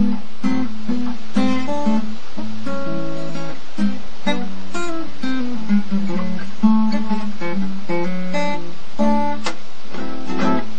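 Background music: acoustic guitar strumming and picking at a steady, moderate pace.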